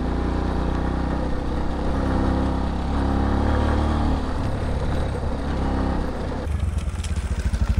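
Italika V200 motorcycle engine running under way, with a steady engine note and wind and road noise. About six and a half seconds in, the sound breaks into an uneven, rapid low throbbing as the bike slows.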